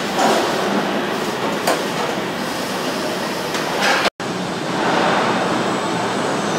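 Steady din of car-plant body-shop machinery, with a few sharp metallic clanks as steel body panels are handled into a fixture. The sound drops out for an instant about four seconds in, then the steady machinery noise carries on.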